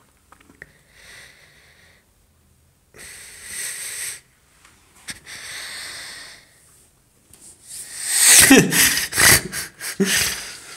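A person's breathy, wheezing breaths in a few bursts of about a second each, then a louder wheezing outburst with a falling pitch about eight seconds in.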